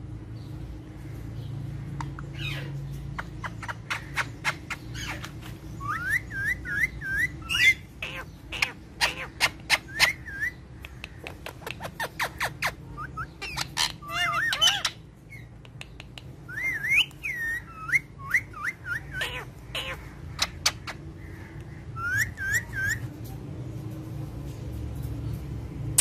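Rose-ringed (Indian ringneck) parakeets calling: short whistled notes that swoop up and down, in several bursts, among many sharp clicks and chirps, over a steady low hum.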